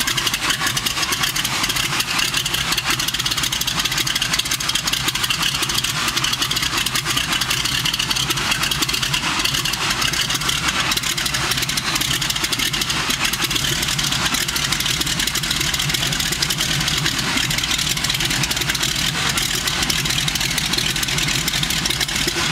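North American SNJ-5's Pratt & Whitney R-1340 nine-cylinder radial engine running steadily on the ground during its warm-up, propeller turning.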